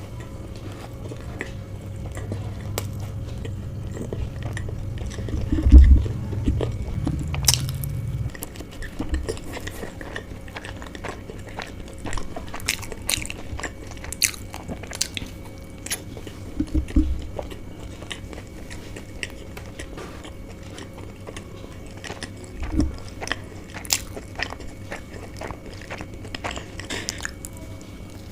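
Close-up biting and chewing of chicken bao buns, with scattered sharp mouth clicks and smacks. A loud low bump about six seconds in.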